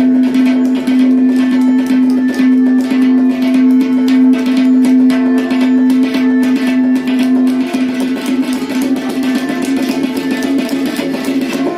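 Tabla solo: a fast, unbroken run of strokes, with the tuned dayan ringing on one steady pitch, over a repeating lehra melody.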